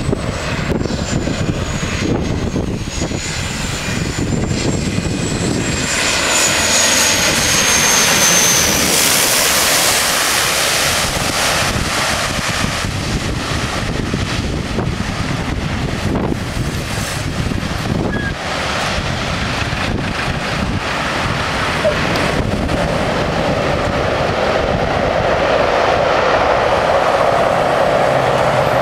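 A de Havilland Canada DHC-6 Twin Otter's two Pratt & Whitney PT6A turboprop engines and propellers on a landing approach. A high turbine whine dips in pitch over the first eight seconds, the sound peaks loud and hissy about nine seconds in as the aircraft passes closest, and the engine and propeller noise carries on, swelling again in the last few seconds.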